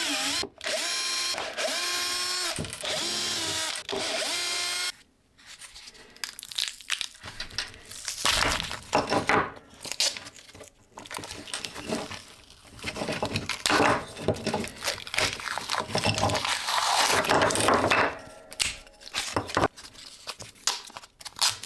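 Power drill running in three short runs as the MDF casting mold is taken apart, then irregular knocks, scrapes and clatter as the mold pieces are handled and pulled off.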